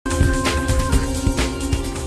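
News channel intro jingle: loud music with held tones over a beat of regular hits.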